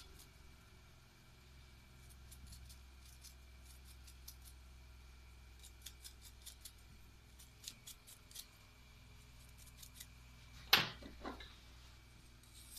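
Faint scratchy clicks of a small brush scrubbing the teeth of a sheep-shearing comb, over a steady low hum. Near the end there is a louder metallic clink and a smaller second one.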